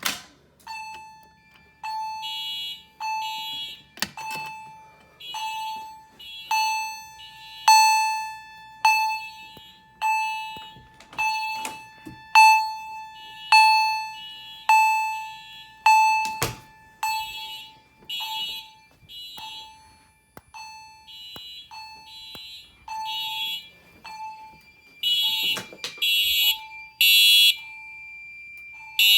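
Fire alarm system in alarm after a manual pull station is pulled: an Edwards chime strikes a ringing, decaying tone about once a second, while other alarm signals sound in short pulses on a similar beat. The pulses grow louder near the end, and there are a few knocks.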